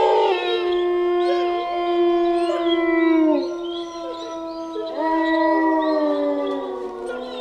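Eerie horror-ringtone ghost sound effect: a long howling wail of several tones at once that slides down in pitch about three seconds in, swells up again about five seconds in, then sinks and fades. It cuts in abruptly out of silence.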